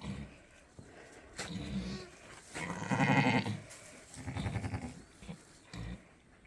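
Sheep bleating several times, the loudest and longest call about three seconds in.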